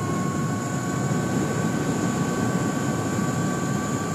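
E-Ride Pro SS electric moto at full throttle, accelerating past 50 mph: a steady electric motor whine creeping slightly up in pitch as speed builds, over rushing wind and tyre noise.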